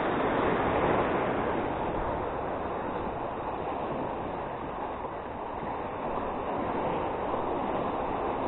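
Sea waves washing in and breaking over shoreline boulders: a steady rush of surf that eases a little midway and builds again near the end.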